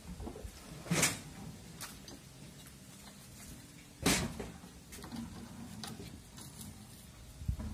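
Clay roof tiles clacking against each other as they are handled and laid on the roof: three sharp knocks about three seconds apart, the middle one the loudest.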